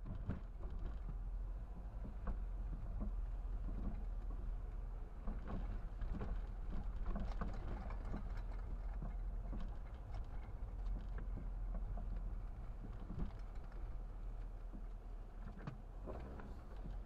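Car driving slowly, heard from inside the cabin: a steady low engine and road rumble with irregular crackling and patter from the tyres on wet, slushy pavement.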